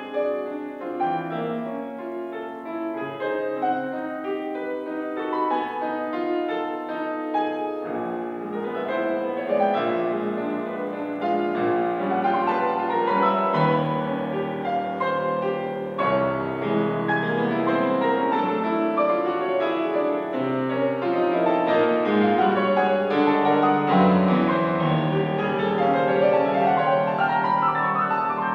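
Steinway grand piano played solo: a fast, dense classical passage with many notes in quick succession, growing louder about ten seconds in.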